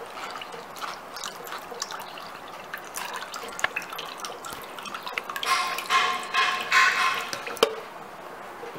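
Banana-peel water dripping in small irregular drops from a strainer into a glass bowl. Past the middle comes a louder, pitched scraping sound lasting about two seconds, followed by a single sharp click.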